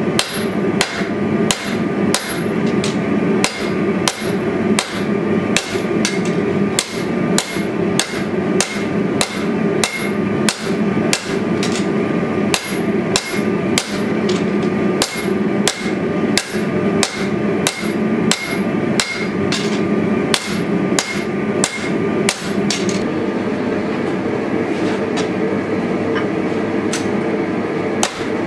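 Hand hammer striking a red-hot pattern-welded steel sword blade on an anvil. The blows ring out about two to three a second over a steady rushing noise, stop for a few seconds near the end, then start again.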